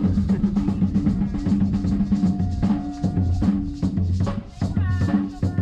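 Music with a steady drum-kit beat and a strong bass line.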